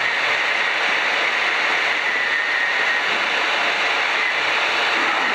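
Steady in-flight cabin noise of a Piper PA-12 Super Cruiser: engine, propeller and rushing air, with a faint steady high tone.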